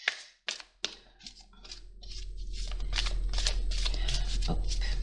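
Oracle cards being shuffled by hand: quick, irregular card-on-card slaps and riffles. A steady low hum comes in about two seconds in.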